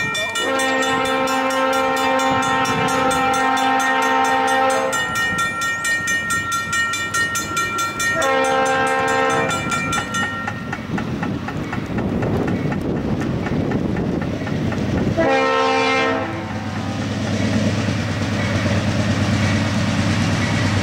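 A Norfolk Southern diesel locomotive's multi-chime air horn sounding three times: a long blast of about four seconds, a shorter one of about a second and a half, then a short one around fifteen seconds in. After the last blast, the low rumble of the approaching freight train grows.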